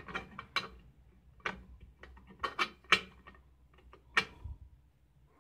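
Irregular light clicks and knocks of metal exhaust parts being handled and pushed together by hand, as a fitting is tried in an SR Corse exhaust and will not go in.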